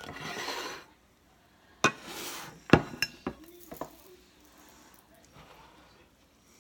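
Dishing up food: a metal serving spoon scraping and clinking in a stainless steel skillet, with a ceramic plate set down on the counter. There are two short scrapes and several sharp clinks, the loudest almost three seconds in.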